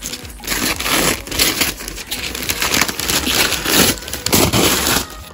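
Brown kraft paper wrapping being torn open and crumpled by hand in a run of repeated rips and rustles.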